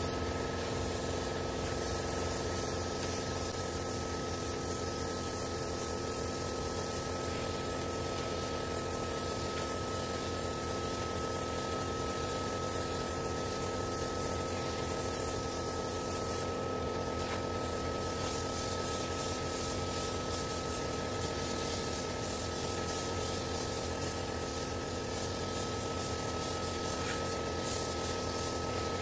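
Gravity-feed compressed-air spray gun hissing steadily as it sprays paint, with a thin steady high tone running underneath.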